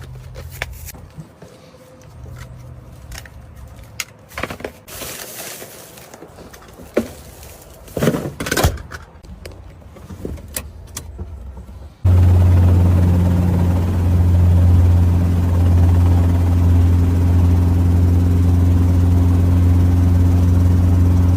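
Scattered knocks and clicks of handling. About twelve seconds in, after a sudden cut, a loud, steady, low engine drone takes over and holds.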